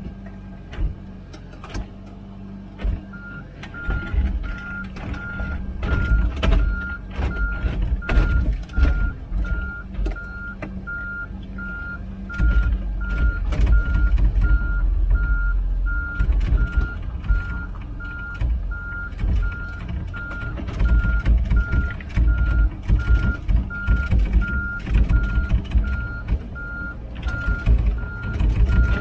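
Komatsu PC16 mini excavator's diesel engine running as the machine travels on its tracks, with clanks and rattles. Its travel alarm starts beeping steadily a few seconds in, about three beeps every two seconds.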